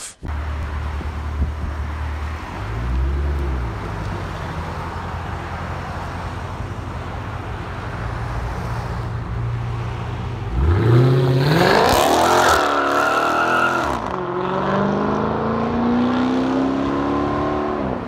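2016 Dodge Charger 392's 6.4-litre HEMI V8 with a muffler delete idling, with a short blip of revs about three seconds in. About ten seconds in it drives off, the exhaust getting louder and the engine pitch climbing as it accelerates away.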